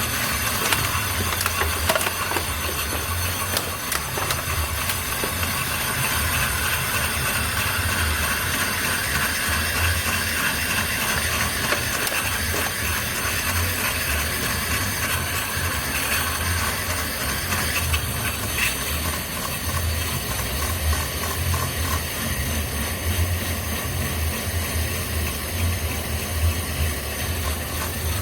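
Volkswagen Fox's spinning front brake disc being ground with a knife-sharpening stone: a steady scraping hiss over the low hum of the engine, which is running in gear to turn the hub. The disc is being resurfaced to take down the lip that made the new brake pads squeal.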